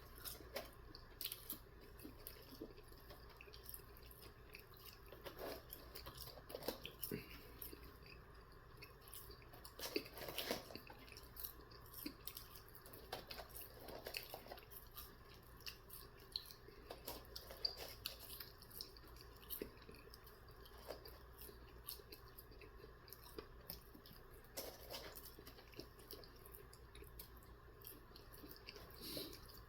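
A person chewing food with faint, irregular wet mouth clicks and smacks.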